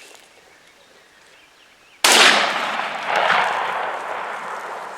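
A single shotgun blast about two seconds in, starting sharply and trailing off in a long rolling echo over the next few seconds.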